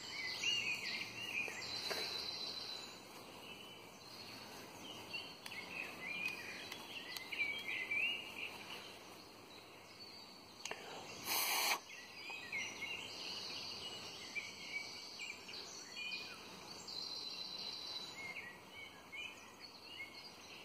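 Woodland birdsong: several small birds singing and calling, with short chirps and repeated trills, over a faint outdoor background. About eleven seconds in comes a short burst of noise, loud for about a second.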